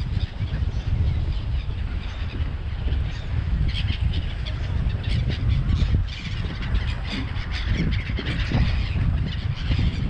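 Seagull flock calling, many short cries overlapping, thickest from about four to nine seconds in, over a loud steady low rumble.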